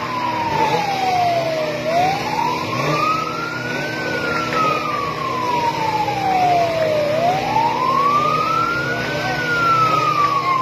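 Fire engine siren wailing, its pitch sliding slowly up and then down in a repeating cycle of about five seconds, over steady background noise.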